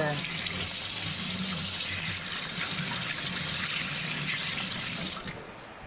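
Water running steadily from a tap, shut off suddenly about five seconds in.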